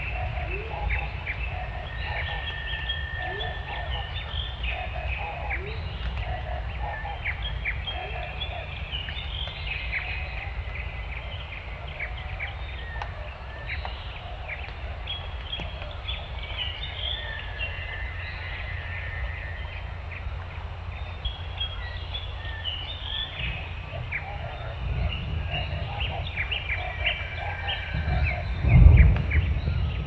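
Many birds chirping and calling in short, scattered notes over a steady low background rumble, with a louder low rumble about a second before the end.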